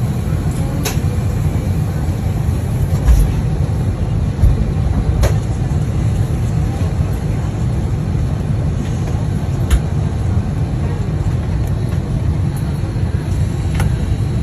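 Steady low rumble of a moving vehicle heard from inside its cabin, with a few short clicks and light knocks.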